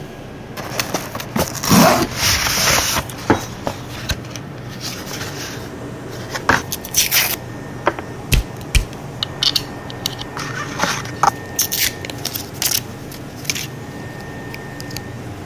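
Cardboard and molded pulp packaging opened and handled by hand, with a long scraping rustle about two seconds in, then scattered clicks and rustles and two low knocks near the middle.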